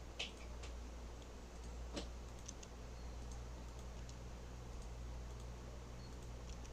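Faint computer mouse clicks and keyboard taps over a steady low electrical hum: a sharper click just after the start and another about two seconds in, with scattered lighter ticks.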